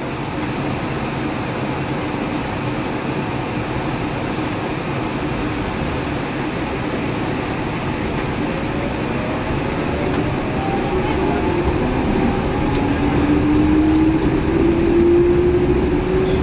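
Yurikamome 7300-series rubber-tyred automated train running, heard from inside the car: a steady rumble of tyres and running gear. From about halfway through, a motor whine climbs steadily in pitch as the train picks up speed.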